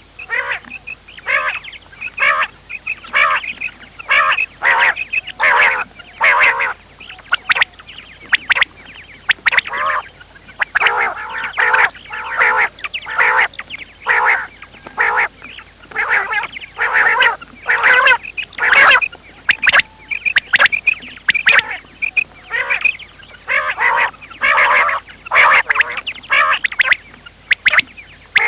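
Birds calling over and over, one or two short calls a second, with brief pauses about a third and three quarters of the way through.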